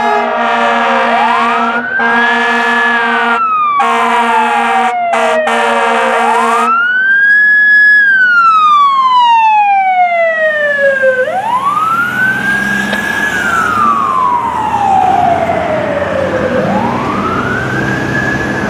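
Fire truck's Federal Signal Touchmaster electronic siren on wail, rising and falling slowly about every five seconds, with the truck's air horn blasting over it several times in short bursts during the first seven seconds. In the second half the truck's engine rumble grows under the siren.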